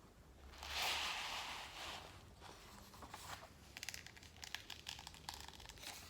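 Diamond painting canvas being handled and turned over: a rustling swish about a second in, then a run of crinkling crackles.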